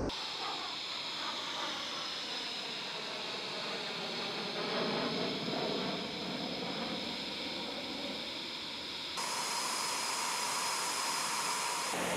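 Jet noise of a Eurofighter Typhoon's twin EJ200 turbofans as it flies past overhead: a broad hiss with slowly sweeping tones through it. About nine seconds in, the sound changes suddenly to a steadier hiss with a held whine.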